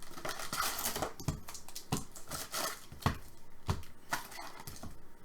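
Trading cards and plastic card spacers being handled and stacked: irregular sharp plastic clicks with bursts of rustling.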